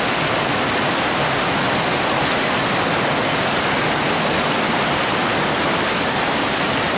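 A fast mountain stream rushing over rocks, fed by a waterfall cascading down the slope: a loud, steady rush of water.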